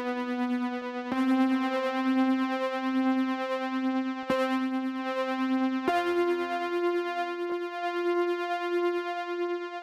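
A synth keyboard playing sustained chords on its own, with new chords struck about a second in, around four seconds and near six seconds, and a slight pulsing in the held low notes. This is the keys track of a live recording played back through the Neold V76U73, an emulation of the Telefunken TAB V76 tube preamp and U73 compressor.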